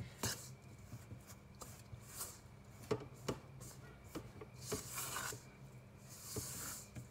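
A metal spoon stirring flour and water into dough in a stainless steel bowl: irregular taps of the spoon against the bowl and soft scraping, with two short bouts of scraping about five and six and a half seconds in.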